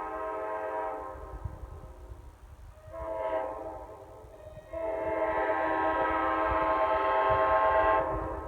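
Nathan Airchime K5LA five-chime locomotive air horn, a transition-era set with 1980s bells, blown unrestricted: a blast that dies away about a second in, a short toot, then a long steady blast that cuts off near the end.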